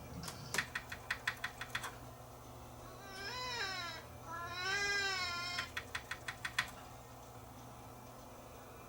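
A rapid run of about eight clicks from a CD player's track-skip button, then two cat meows from a sound-effects CD track, then another quick run of button clicks.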